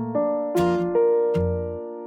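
Background music: piano or electric piano playing sustained notes, a new note or chord struck about every half second.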